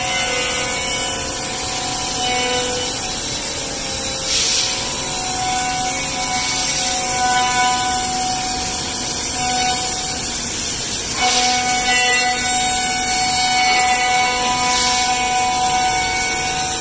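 Five-axis CNC router spindle cutting wood chair parts: a steady machining whine whose pitch shifts as the tool moves, over constant cutting noise, with a few short louder hisses.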